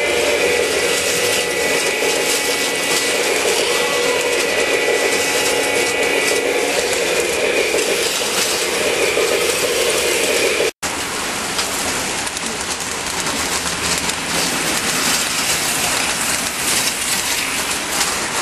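Small electric motors and gears of HO scale model trains and AFX slot cars running on a layout, a steady mechanical whirring. Whining tones are held through the first half. The sound breaks off briefly about eleven seconds in and comes back as a more even whir.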